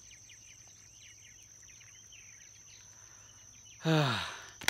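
A steady high insect buzz with faint scattered chirps on a quiet pond bank. About four seconds in, a man gives a short voiced grunt that falls in pitch.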